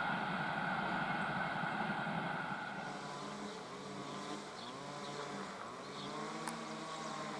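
Rolling noise of a passenger train hauled by an electric locomotive, wheels on rails, moving away. About three seconds in it grows quieter and turns into a wavering, hollow rumble as it fades into the distance.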